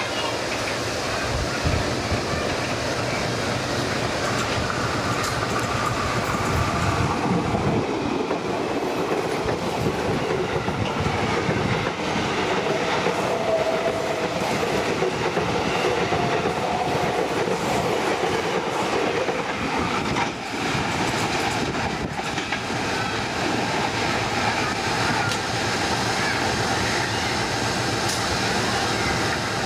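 Ex-Tokyo Metro 6000-series KRL electric commuter train passing close by, its wheels clattering over the rail joints. A short lull comes about 20 seconds in, and a second, locomotive-hauled train approaches near the end.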